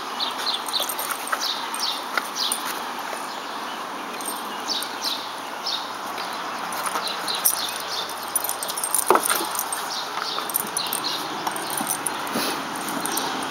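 Small birds chirping repeatedly over steady outdoor background noise, with quiet sounds of dogs playing and a brief sharper sound about nine seconds in.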